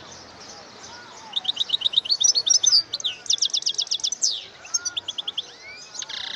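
European goldfinch singing. About a second in it starts rapid runs of short, high repeated notes, mixed with quick twittering phrases, and these return in several bursts.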